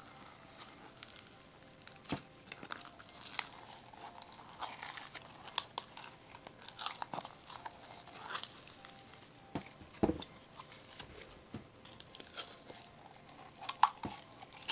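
Crunchy slime with little crispy bits in it, squeezed and stretched by hand, giving irregular crackling and crunching with scattered sharp clicks. A duller knock comes about ten seconds in.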